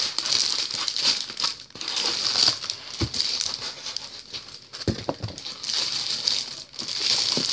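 Plastic packaging bag crinkling and rustling irregularly as it is handled and pulled open.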